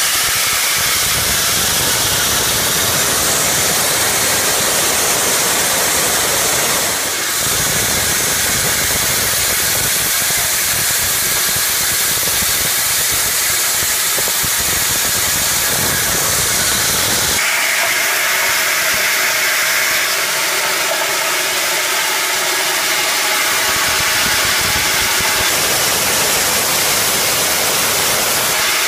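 Copra expeller and oil-mill machinery running, a loud, steady mechanical noise with hiss. The character of the noise shifts abruptly about 7 and 17 seconds in.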